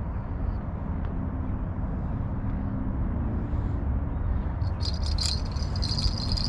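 Wind buffeting the microphone, a steady low rumble. About five seconds in, a high rattling from the spinning reel starts as the rod is lifted and the reel is worked.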